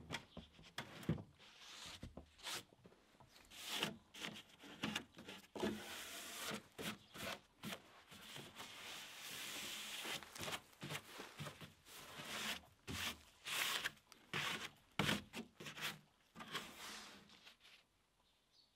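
Irregular scraping, rubbing and light knocking, like wood and debris being handled and dragged about, in quick uneven strokes with a longer steady scrape in the middle, dying away near the end.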